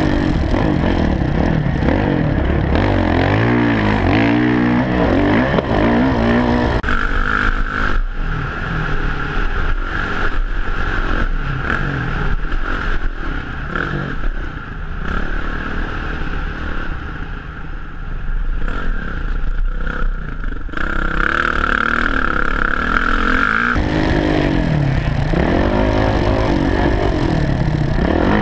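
Kawasaki KX450 motocross bike's single-cylinder four-stroke engine revving up and falling back again and again as the rider accelerates and shifts around the track. About a quarter of the way in the sound turns duller and rattly, with a steady high whine over the engine, until the clear rising and falling engine note returns near the end.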